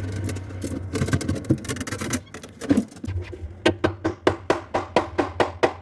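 A steady low hum with scattered small clicks and scrapes, then, from about three and a half seconds in, a fast, even percussion beat of background music, about five strikes a second.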